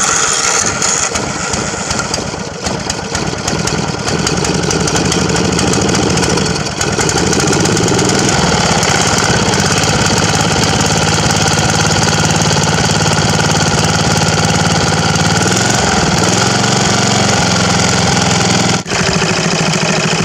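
Single-cylinder 12.5 hp Briggs & Stratton lawnmower engine on a homemade outboard running. It picks up speed about four to seven seconds in and then holds a steady note while it drives an oversized propeller. The sound breaks off for an instant near the end.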